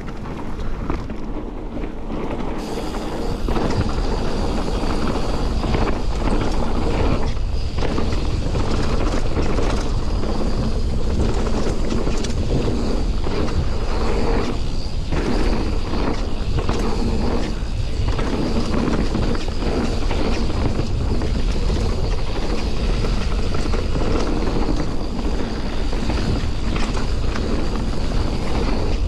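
Mountain bike descending a dirt forest singletrack at speed: wind buffeting the mounted camera's microphone and knobby tyres rolling over the dirt. The noise builds over the first three seconds as the bike picks up speed, then stays steady.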